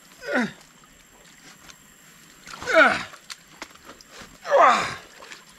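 A man's voice giving three short vocal sounds, each falling in pitch, about two seconds apart; no chainsaw is running.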